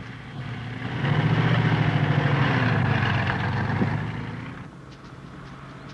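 Truck engine running with a steady low hum, swelling louder about a second in and fading away again near the end.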